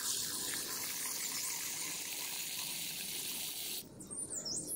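Water running from a tap into a plastic cup of water spinach seeds, splashing steadily as the seeds are rinsed. The flow cuts off suddenly about four seconds in as the tap is closed, leaving a bird chirping.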